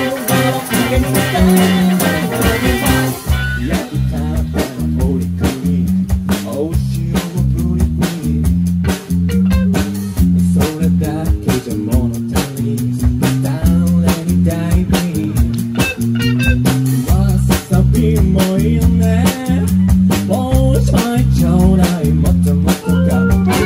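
Band music: electric guitar over bass guitar and a steady drum beat, with no lyrics heard. The arrangement changes about three seconds in.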